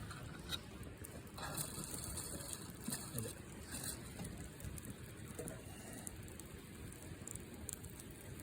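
Wood campfire burning, with irregular crackles and pops and a stretch of hissing from about a second and a half in to about four seconds.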